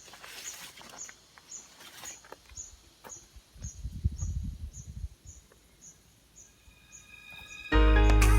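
Forest ambience with a high, regular chirping call repeating about twice a second, some rustling and a low rumble about four seconds in. Loud music starts near the end.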